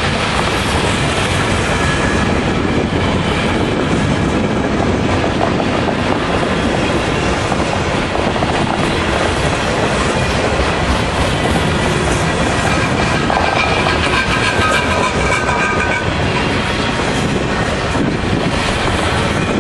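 Loaded freight cars rolling past: a steady rumble and clatter of steel wheels on the rails. Faint high wheel squeal comes in for a few seconds past the middle.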